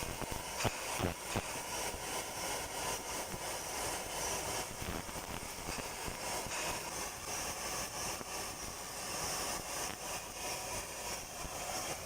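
Handheld fiber laser machine working, a steady high hiss with a few sharp clicks about a second in.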